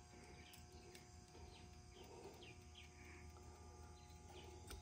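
Near silence, with faint bird chirps in the background and a couple of light clicks.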